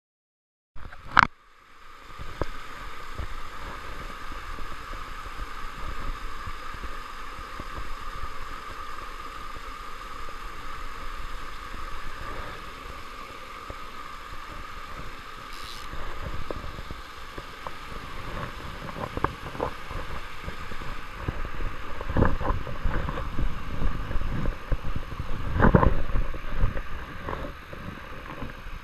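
Steady rush of a small rocky mountain stream running over rocks and cascades. It opens with a sharp click and is broken by scattered knocks and thumps that are heaviest in the last third.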